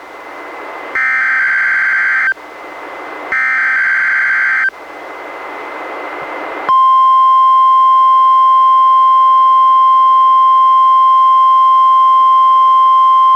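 NOAA Weather Radio SAME alert header: two buzzy warbling digital data bursts, each about a second and a half long, with radio hiss between them. About seven seconds in, the steady 1050 Hz warning alarm tone of a required weekly test starts and holds, received on a Reecom R-1630 weather radio.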